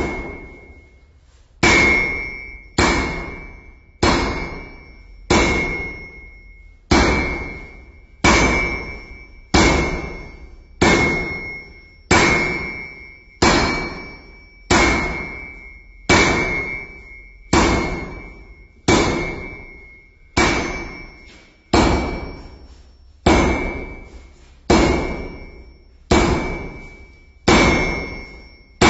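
Sledgehammer striking a steel anvil at a steady pace, about one blow every second and a quarter. Each blow rings with a high, clear tone that dies away before the next.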